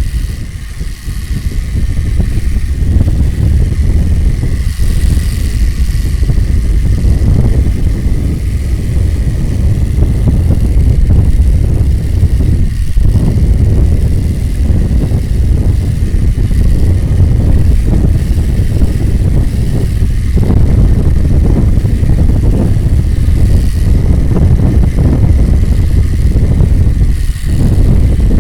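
Playing cards clipped to a bicycle's frame with chip clips, flapping against the turning spokes as it is ridden: a loud, rapid engine-like buzz, meant to imitate an inline-six engine. It builds up over the first few seconds, then runs steadily with a few brief dips.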